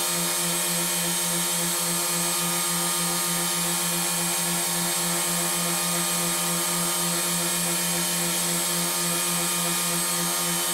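Wood lathe motor running at a steady speed with a constant hum, spinning a wooden knife handle while a wire is pressed against it to friction-burn decorative rings.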